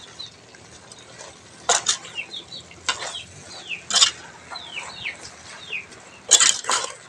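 Metal ladle stirring chopped vegetables in a large aluminium cooking pot, knocking and scraping against the pot in about six irregular clanks. Short falling bird chirps are heard in the background between them.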